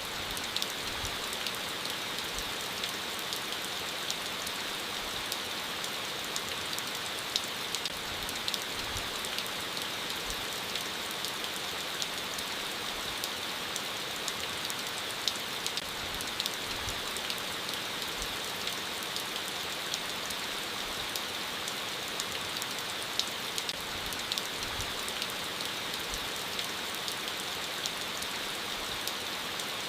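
Gentle rain falling steadily, an even hiss dotted with the sharp ticks of individual drops.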